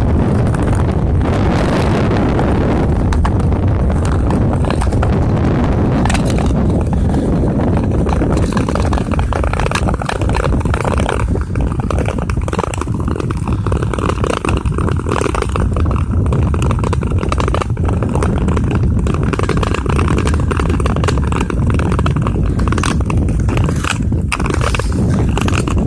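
Long speed-skate blades scraping and gliding over clear lake ice in repeated strokes, over a steady low rumble like wind on the microphone.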